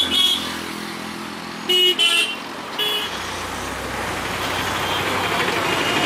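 Road traffic: vehicle horns give several short honks in the first three seconds. After that a motor vehicle's engine runs steadily and grows louder.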